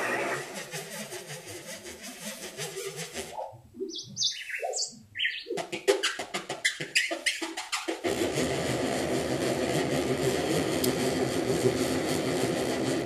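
Dekrispator, a DIY digital synthesizer on an STM32F4 Discovery board, playing in demo mode with its random sequencer. It gives short, stepping notes that leap between low and high pitches, then switches suddenly, about eight seconds in, to a dense, noisy sustained sound, as patches change automatically.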